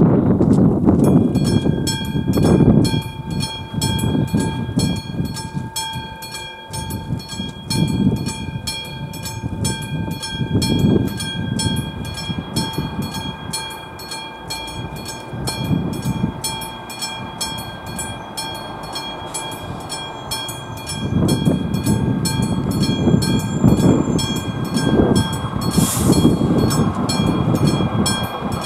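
AŽD 71 level-crossing warning bell, the classic electric bell, starts ringing about a second in: a rapid, even clatter of strokes with a steady metallic ring, the sign that the crossing is closing ahead of a train. Strong gusts of wind buffet the microphone at times.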